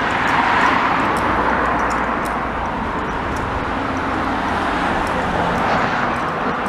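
Road traffic passing: a steady rush of tyre and engine noise that swells as vehicles go by, once about half a second in and again near the end.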